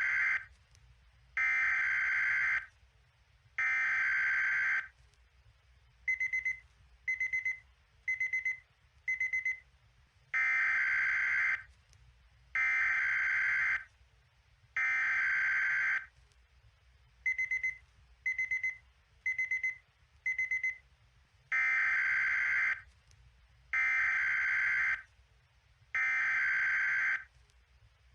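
Mock Emergency Alert System alarm tone: three long buzzy tones of about a second each, then four short beeps, the cycle repeating about every eleven seconds.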